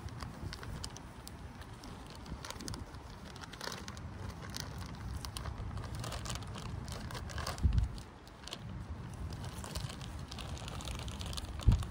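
A plastic bag crinkling and rustling as it is handled, over a low wind rumble on the microphone. Two dull thumps, one about two-thirds of the way through and one at the very end.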